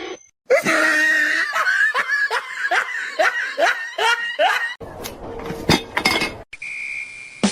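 A person laughing in a long string of quick, evenly spaced bursts, followed by a noisier stretch with a few sharp clicks and a short steady high beep near the end.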